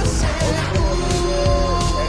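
Upbeat pop music with a steady drum beat and held instrumental notes.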